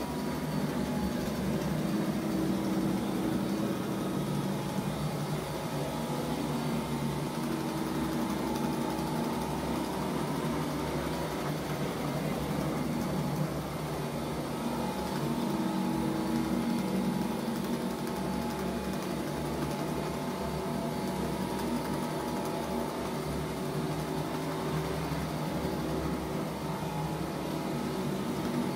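Rotary carpet-cleaning machine running steadily, its motor droning as the spinning head works over the carpet.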